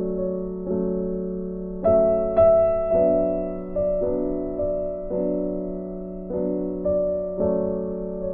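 Background music: a slow, gentle piano piece, with notes struck about once a second and left to ring and fade.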